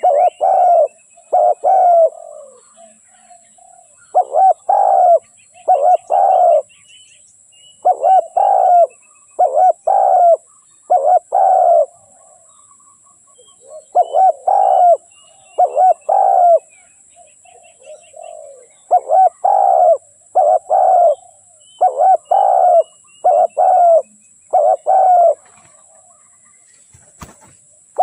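Spotted dove cooing in repeated phrases of three or four low coos, one phrase every few seconds. Faint high chirps of other birds come between the phrases, and there is a single sharp click near the end.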